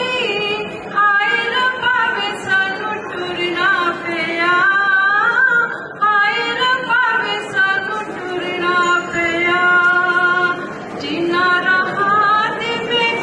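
A woman singing a folk song unaccompanied into a microphone, with long held notes and pitch-bending turns between short breaths.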